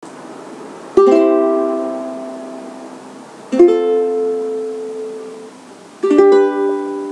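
Three strummed chords on a plucked string instrument, about two and a half seconds apart, each left to ring and slowly fade.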